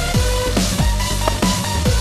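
Electronic dance music with a fast, heavy beat of bass hits that fall in pitch.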